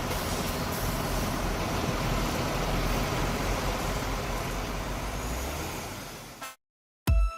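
Diesel engine of a MAN logging truck running steadily as it manoeuvres, with a low engine hum under the road noise. It cuts off abruptly about six and a half seconds in, and electronic dance music with a heavy beat starts just before the end.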